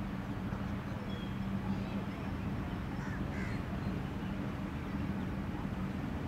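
Steady low rumble and hum with a few faint, short bird calls above it.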